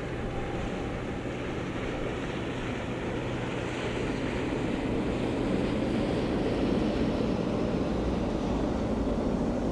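Distant jet engines of a Boeing 767 running as it rolls along the runway, a steady rumble that grows gradually louder about halfway through.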